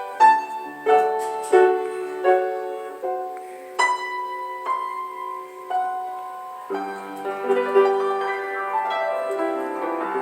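A keyboard instrument played live: a slow melody of single struck notes and chords, each one ringing and fading. About two-thirds of the way in, the playing turns into fuller, busier chords.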